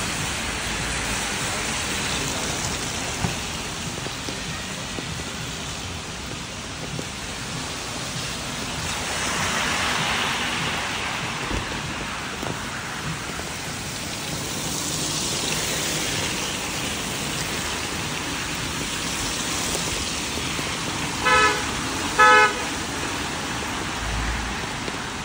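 Steady rain hiss over a wet street, with vehicles swishing past on the wet road twice. Near the end, a vehicle horn gives two short beeps about a second apart, the loudest sounds.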